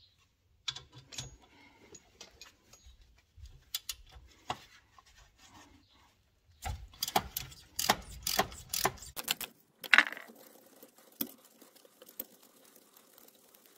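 Ratchet wrench clicking and metal tool clinks as a loose rear brake caliper guide pin is unscrewed, with a dense run of clicks around the middle and one sharp clink just after.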